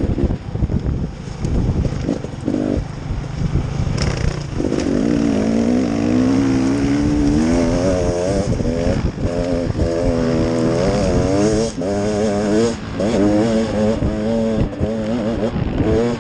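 Engine of an off-road trail vehicle running under way, its revs rising and falling again and again, over a rough low rumble and knocking from the ride.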